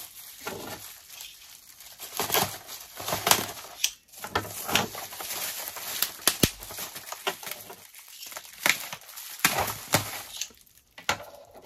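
Packaging rustling and crinkling by hand as diecast toy cars are unpacked from a shipping box, with irregular tearing and short sharp clicks and knocks from handling.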